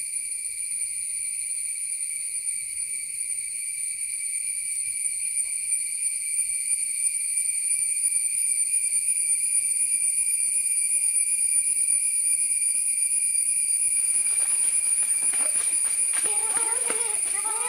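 Steady, high-pitched shrilling of forest insects, several tones held without a break. From about three quarters of the way in, rustling footsteps on dry leaves join in, then shouting voices near the end.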